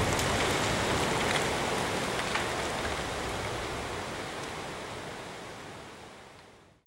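A steady rushing hiss with a few faint ticks, fading out slowly and cutting to silence near the end.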